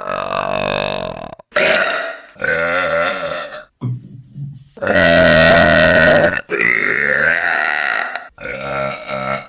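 Women burping, a string of about seven separate pitched burps cut one after another. The loudest and longest, about a second and a half, comes near the middle.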